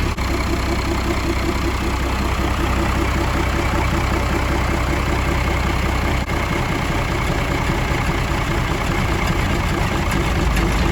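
Vehicle engine running steadily with its PTO engaged, turning an old rotary DC dynamo welding generator. The low hum changes slightly about six seconds in.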